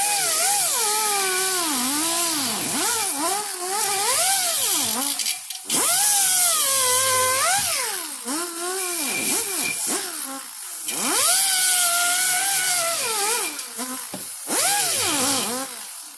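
Pneumatic 90-degree die grinder running with a high whine over a hiss of air. Its pitch repeatedly sags and recovers as it is worked against the cut end of a metal exhaust-hanger tube to deburr it. It eases off briefly about six, eleven and fourteen seconds in.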